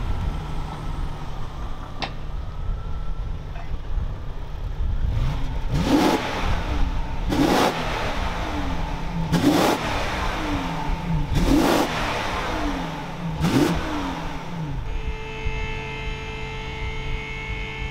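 BMW 760Li's 6.0-litre V12, still on its factory exhaust with resonators, idling and then blipped five times about two seconds apart, each rev rising and falling. Near the end a steady hum takes over.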